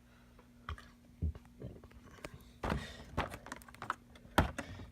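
Irregular light clicks and knocks of objects being handled, likely the model train and its packaging, the sharpest knock near the end, over a faint steady hum.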